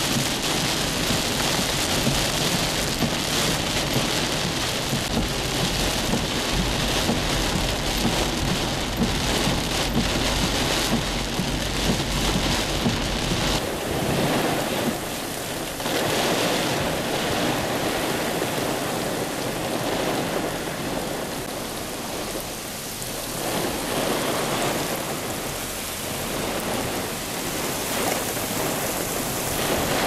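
Heavy thunderstorm rain. It is first heard from a moving car, with a low road rumble under the rain. After a change about halfway through it is steady heavy rain with wind gusts that rise and fall.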